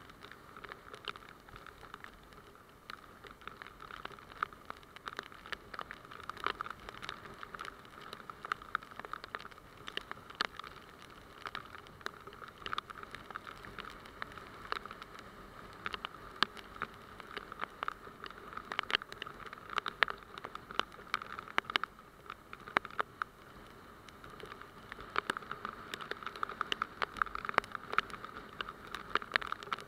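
Raindrops hitting the camera during a motorcycle ride in heavy rain: many irregular sharp ticks over a steady hiss of rain and wet road, the ticks coming thicker near the end.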